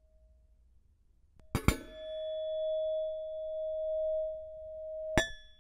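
Stainless-steel kettle from a designer tea set tapped by hand, a quick double clink that sets it ringing with a clear, steady metallic tone for a few seconds. A second clink near the end.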